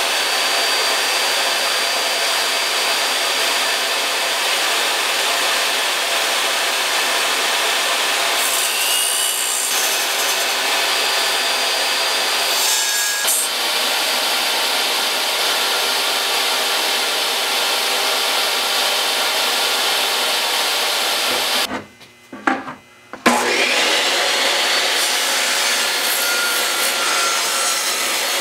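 Portable jobsite table saw running at full speed while a board is ripped through the blade: a steady high whine with the rasp of the cut. About 22 seconds in it cuts out for a second or so, then the motor starts again with a rising whine back up to speed.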